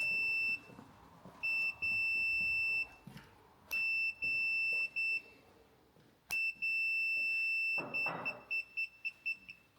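Continuity tester beeping as a fuel tap's electrical switch is pressed and released: four long, steady high beeps, the last one breaking into quick stuttering beeps near the end. Each beep marks the switch contacts closing the circuit, and the stutter is the contact flickering as the switch is worked. Some handling rustle sounds between the beeps.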